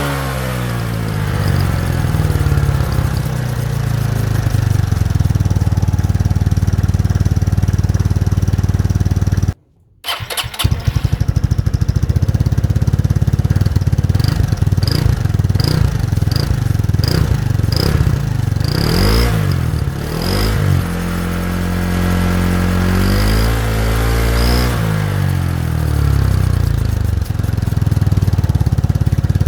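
A 180cc scooter engine idling and being revved through an exhaust fitted with a turbo whistle. Short high-pitched whistle chirps come in a quick series midway and again with the later revs. The sound cuts out briefly about a third of the way in.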